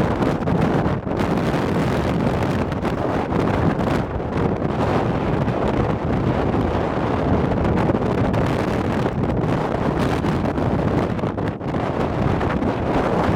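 Strong wind blowing across the microphone: a loud, steady rush that flickers up and down with the gusts.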